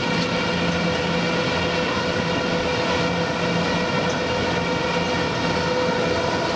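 Compost filling machine running, its belt conveyor carrying compost: a steady mechanical hum with a constant whine over a rumbling rattle.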